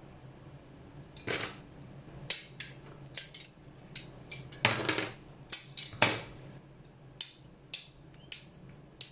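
Irregular sharp clicks and taps of hard plastic model-kit parts and hobby tools being handled, with two longer scrapes, over a faint steady hum.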